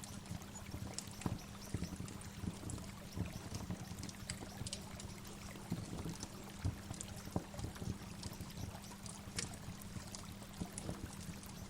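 Waterfall: a steady rush of falling water with frequent small, irregular splashes.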